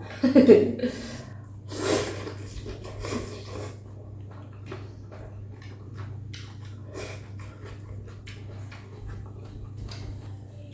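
A person eating rice noodle soup close to the microphone: a loud slurp about two seconds in, then chewing and lip smacks with many small sharp clicks, over a steady low hum.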